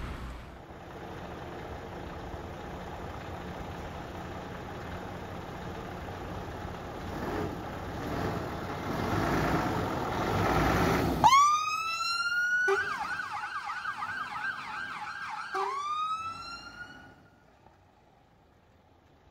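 Scania 94D 260 fire engine's diesel engine running and growing louder, then its electronic siren sounds about two-thirds of the way through. The siren gives a rising whoop held for a moment, a few seconds of fast yelp, and a second rising whoop, each cut off suddenly.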